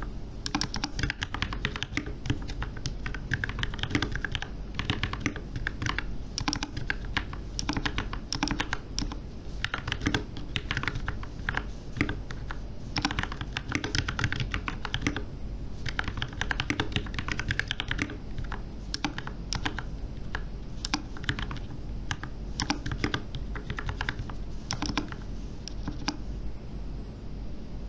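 Typing on a VortexSeries VX6 mechanical keyboard with lubed and filmed Gateron Black Ink V2 linear switches and PBT Cherry-profile keycaps: a steady stream of irregular keystrokes with brief pauses, over a low background hum.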